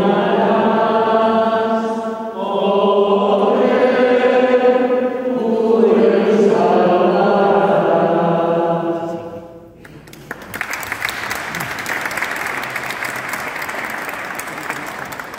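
Voices singing a hymn together in long phrases, which cuts off suddenly about ten seconds in; applause follows to the end.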